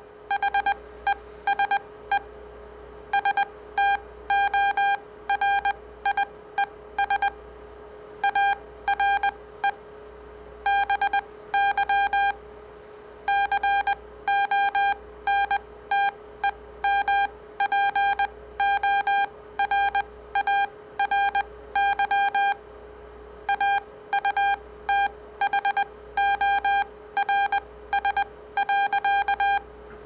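Morse code (CW) played through a speaker as a sawtooth-wave audio tone: a single pitched tone keyed on and off in dots and dashes, with short pauses between letters and words. A steady hum runs underneath.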